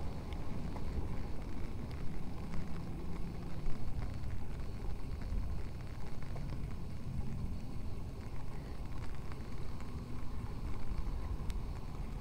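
Rainy outdoor street ambience: a steady low rumble with scattered faint ticks.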